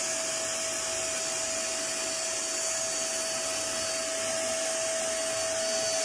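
Silver Crest 35-litre, 3000-watt vacuum cleaner running steadily with a high whine and rushing air, sucking water out of a plastic bottle through its hose.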